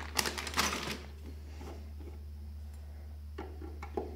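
Handling noises on a plastic NAS enclosure: a quick run of rustling and clicking in the first second, then a few light, separate clicks near the end as a thin metal pry tool is worked against the plastic case edge.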